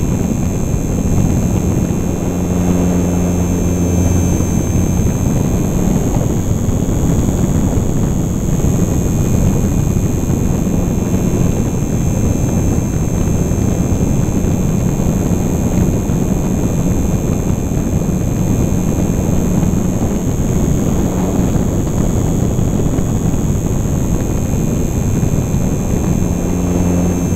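Onboard sound of a HobbyZone Super Cub LP radio-controlled model plane in flight: its electric motor and propeller running steadily under loud wind rush over the microphone, the motor hum swelling a few seconds in and again near the end.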